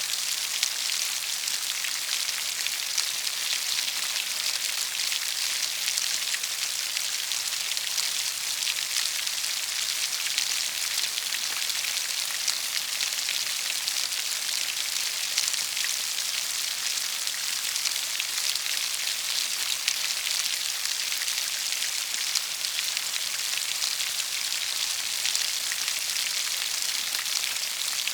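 Rain falling steadily: an even, bright hiss speckled with countless small drop impacts, unchanging throughout.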